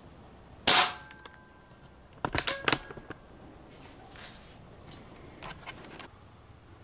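A single sharp shot from a Benjamin Marauder Woods Walker .22 pre-charged pneumatic air gun, the loudest sound, under a second in. About a second and a half later comes a quick run of metallic clicks with a faint ring, the bolt being worked to chamber the next pellet. A few faint clicks follow near the end.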